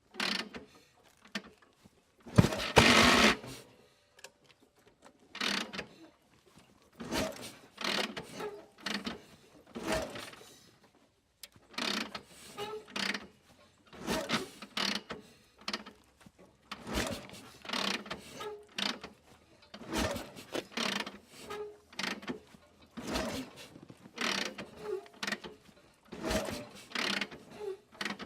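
A vehicle's gear lever being shifted through the gears over and over, each shift a short mechanical clunk and rattle, about one a second. One longer, louder shift comes about three seconds in.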